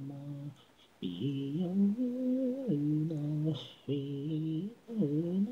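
Unaccompanied singing voice from an a cappella vocal track: one voice holding steady, sustained notes in short phrases with brief pauses between them, with no instruments.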